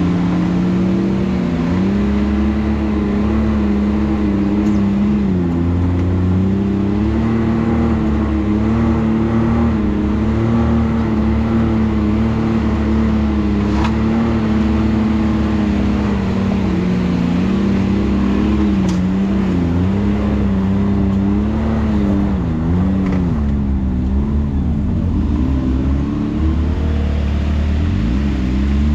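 Can-Am Maverick X3 side-by-side's three-cylinder engine running while driving a trail, its pitch rising and falling with the throttle and wavering more unevenly near the end.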